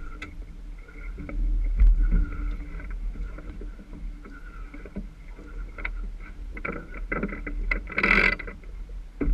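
Sailboat under way, with a steady low rumble of wind buffeting and water along the hull and a faint hum. Near the end comes a run of sharp clicks and then a short loud burst of noise from deck gear being handled.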